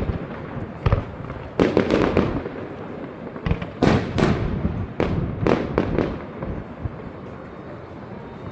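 Fireworks going off: a series of sharp bangs, several followed by crackling, coming every second or so and stopping about six seconds in.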